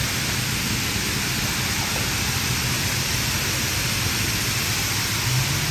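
High-pressure spray from a WashWorld Razor touchless car wash's overhead gantry arm hissing steadily against a car, applying the protective product stage, with a low machine hum underneath.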